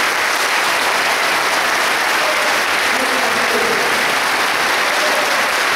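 Congregation applauding steadily in a church hall.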